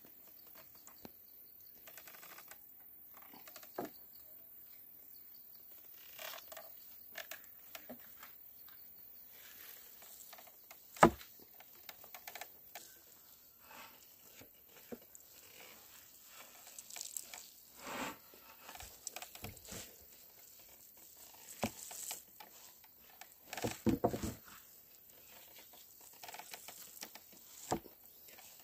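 Traditional wooden lever oil press under load: scattered faint creaks and wet crackling as oil seeps from the squeezed sack of crushed seed. A sharp knock about a third of the way in, and a short run of louder creaks near the end.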